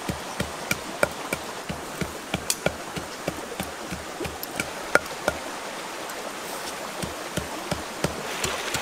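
Wooden pestle pounding red chillies in a mortar: steady, evenly spaced thuds about three a second. A stream runs underneath.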